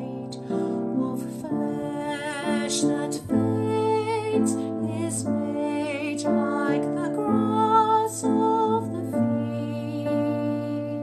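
A woman singing a hymn solo, holding sustained notes with vibrato, over a soft instrumental accompaniment with steady low notes.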